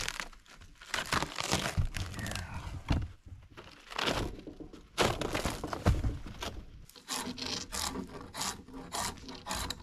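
Old weathered slab boards being pried and torn off a wooden shed wall by hand: an irregular string of wood cracking, splintering and scraping, with sharp knocks among them.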